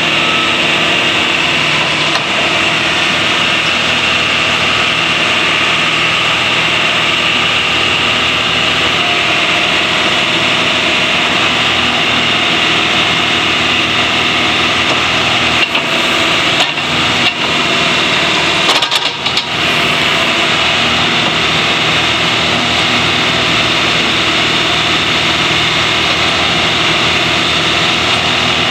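John Deere 310SK backhoe loader's four-cylinder diesel engine running at a steady speed, with a few brief dips in level about sixteen to nineteen seconds in.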